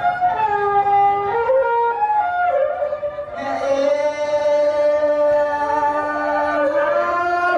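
Traditional Khmer wedding music: a tro, the two-string bowed fiddle, plays a winding melody, and about three and a half seconds in a singer comes in with a long held note over it.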